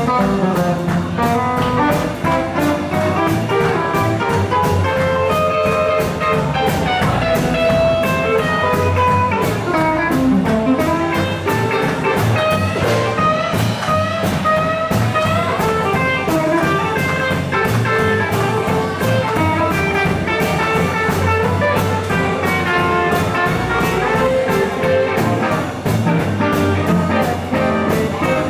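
Live blues band playing an instrumental break with no vocals: electric and acoustic guitars and a drum kit under a lead melody that bends in pitch.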